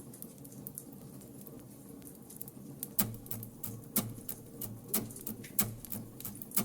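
Wood fire crackling, with a soft steady crackle at first and sharp, loud pops from about halfway through.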